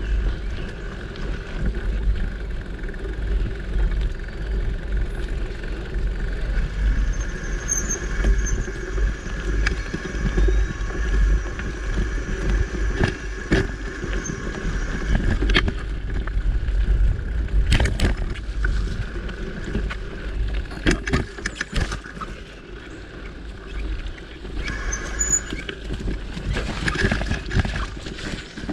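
Mountain bike rolling along a dirt singletrack: a steady rumble of tyres on dirt and wind on the microphone, with sharp rattles from the bike jolting over bumps, several of them in the second half.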